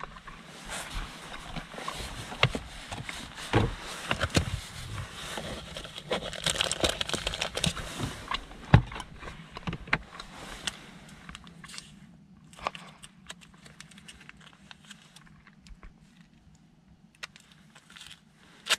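Rustling and crinkling of packaging and clothing as things are handled, with scattered small clicks and crackles. It is dense for about the first half, then thins out to occasional crinkles, with a sharp click at the very end.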